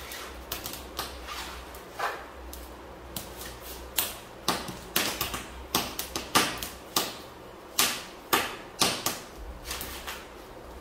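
Fresh corn husks being torn and peeled off the cob by hand: irregular crisp rips and snaps, one or two a second, some louder than others.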